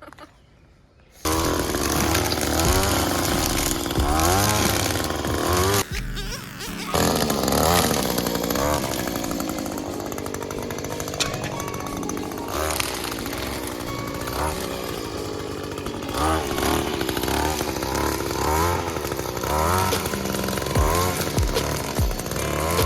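Gas string trimmer (weed eater) running and revving, mixed with a music track that has a heavy bass line. Both start abruptly about a second in.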